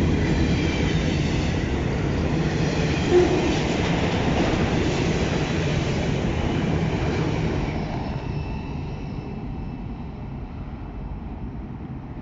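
Ferromex train's cars rolling past on the rails, a steady rumble of wheels on track that fades away after about eight seconds as the train moves off.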